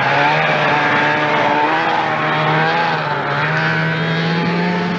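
Snowmobile engines running steadily, the pitch climbing slowly as the sleds pull away across the snow.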